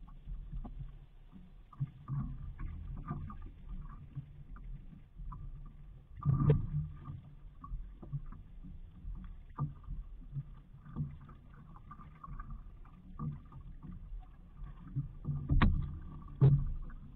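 Water sloshing and lapping against the hull of a small outrigger boat as it is poled through shallow water, with a low rumble and a few hollow knocks on the boat, the loudest about six seconds in and twice near the end.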